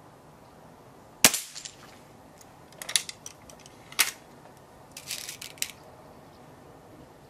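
A single sharp shot from an HW97 spring-piston air rifle fitted with a titanium piston kit, about a second in, with a quick shot cycle. It is followed by several metallic clicks and rattles as the rifle is cocked and a pellet is loaded.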